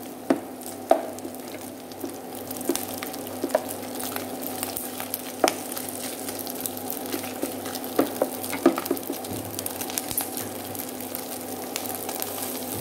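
Food sizzling in oil in a nonstick frying pan as dried fish and green chilies are stir-fried, with a wooden spatula scraping and clicking against the pan now and then. A steady low hum runs underneath.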